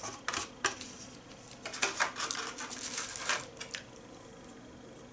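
Wooden chopsticks clicking and scraping against a black plastic takeout box while the last piece is picked out. A run of sharp irregular taps lasts about four seconds and then stops.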